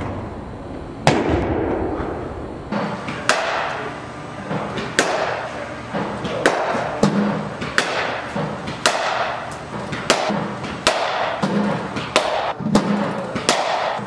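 Cricket bat striking ball after ball in an indoor practice net, a sharp crack roughly once a second, each ringing briefly in the hall.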